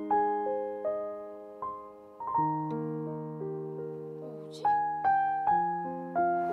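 Background music on solo piano: a slow melody of single notes over chords, each note ringing and fading.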